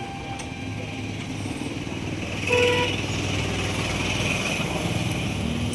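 Steady low hum with passing road traffic, and a short vehicle horn toot about two and a half seconds in.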